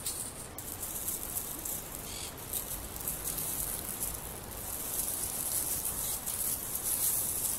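Footsteps rustling and crunching through dry fallen leaves, an irregular crackle of steps.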